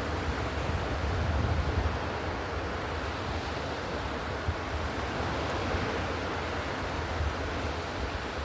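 Ocean surf: a steady wash of waves with a deep low rumble, swelling slightly in the first couple of seconds and then holding even.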